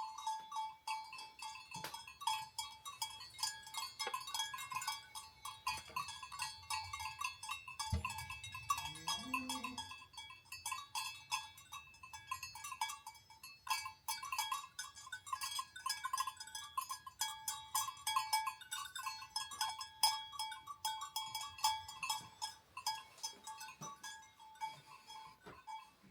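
Many sheep bells clanking and jingling irregularly as a grazing flock moves. A sheep bleats once, briefly, about eight seconds in.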